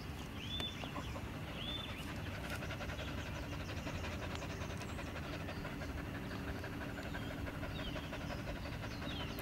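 A dog panting steadily, with a few short high chirps over it.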